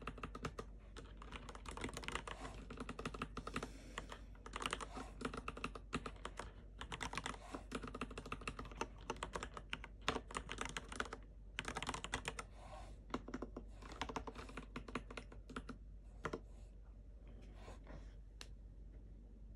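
Typing on a Varmilo VA108Mac V2 mechanical keyboard with red linear switches: fast runs of keystrokes in bursts with short pauses, thinning to a few scattered key presses near the end.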